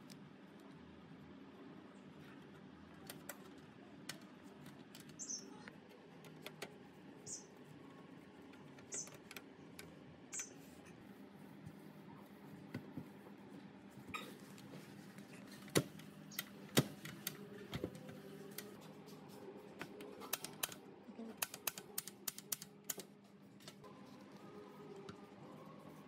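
Small metal and plastic parts of a portable gas stove clicking and tapping as the burner, igniter lead and control-knob housing are fitted back together. The clicks are sparse at first and come in a quick run in the second half.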